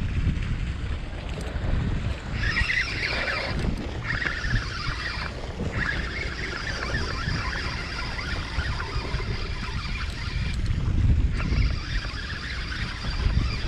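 Wind buffeting the microphone over a steady hiss of water and spray around a boat at sea.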